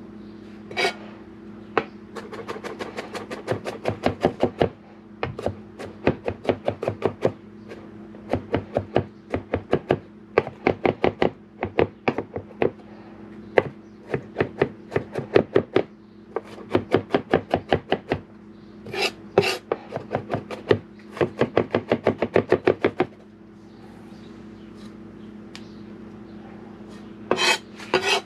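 Kitchen knife chopping quickly on a cutting board, in runs of several strokes a second with short pauses between them.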